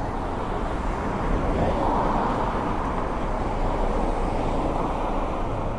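Shopping-street ambience: a steady wash of background noise that swells about two seconds in and eases off again.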